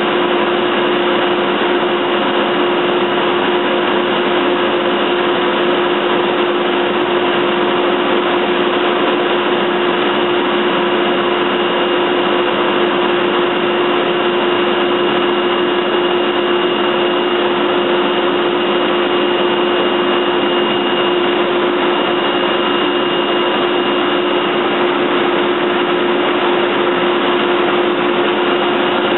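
Techno Isel CNC router's spindle and dust extraction running steadily, a constant loud drone with a strong hum that never changes.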